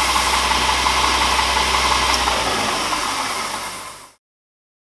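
Oscillating belt sander running with a steady hiss over a low motor hum. The hum drops away a little past two seconds in, then the sound fades and cuts off about four seconds in.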